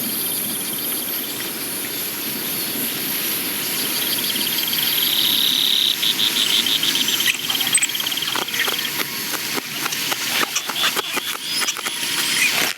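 Film sound-effects track of insect ambience: evenly pulsed, high chirping trills like crickets. From about halfway, a busy run of small clicks and taps joins in and the trills fade.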